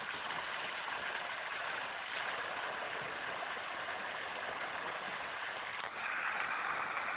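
Steady rushing noise, then about six seconds in a louder rush of water gushing from a pipe outlet and splashing into a shallow pool.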